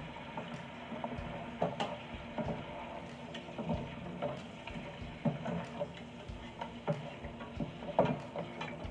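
Shrimp, mussels and squid being stirred and tossed with a plastic spatula in a stainless steel pot of butter, with irregular clacks and scrapes as shells and spatula knock against the pot, over a low sizzle. The loudest clack comes near the end.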